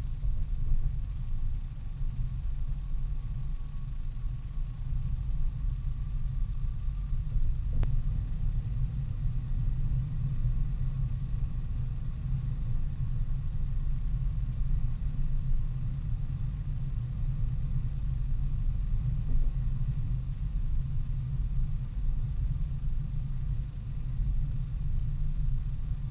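Steady low rumble of a car driving along a highway: road and engine noise from the moving vehicle.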